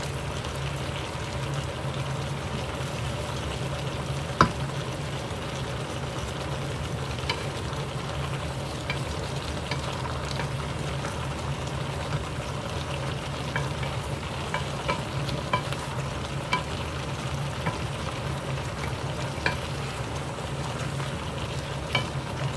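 Vegetables and coconut milk sizzling in a wok while a wooden spatula stirs them. There are scattered light knocks and scrapes of the spatula against the pan, with one sharper knock about four seconds in, over a steady low hum.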